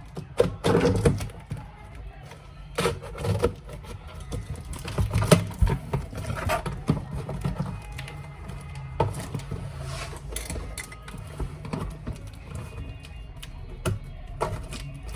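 Music playing, with scattered knocks and clatter throughout.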